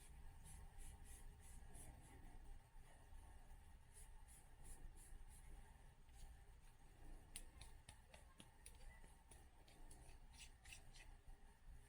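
Faint scratchy rubbing and ticking from steel reloading die parts being handled and threaded together, in runs of quick strokes several times, over a low steady room hum.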